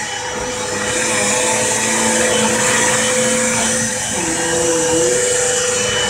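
Vacuum cleaner running steadily, its pitch wavering briefly about four seconds in.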